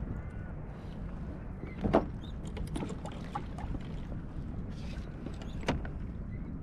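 Knocks and clicks of gear being handled on a fishing kayak, over a steady low rumble of wind and water. The loudest knock comes about two seconds in, another near the end, with a few light ticks between.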